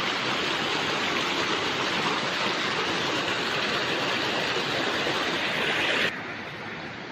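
Heavy rain pouring down, a loud steady hiss. About six seconds in it drops suddenly to a quieter, duller rush.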